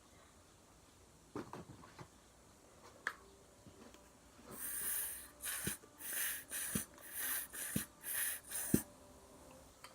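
Wet squelching and squirting from homemade slime being handled, in a quick run of short airy bursts from about halfway in, with a soft knock roughly once a second.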